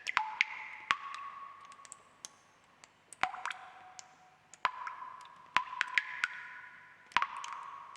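Water drops falling irregularly into water, each a sharp plink with a short ringing tone of its own pitch. There is a brief lull about two to three seconds in.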